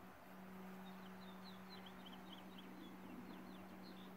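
Faint bird song: a rapid run of short, high chirps, about five a second, from about a second in until near the end, over a steady low hum.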